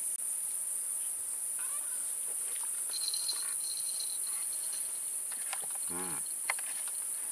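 Steady high-pitched insect chorus shrilling through the summer heat, with faint chirps over it. A brief low voice sound cuts in about six seconds in.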